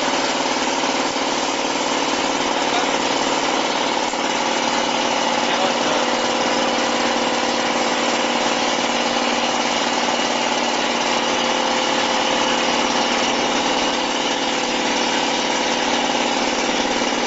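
Ultrasonic ampoule and vial washing machine running: a steady mechanical hum with several fixed tones over an even hiss.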